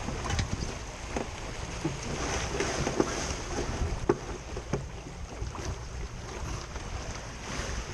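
Water rushing and splashing along the hull of a Laser Vago sailing dinghy under way, with wind noise on the microphone. Several sharp knocks come at irregular moments.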